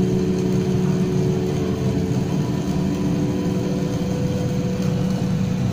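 A steady low mechanical hum with a few held tones above it, unchanging throughout.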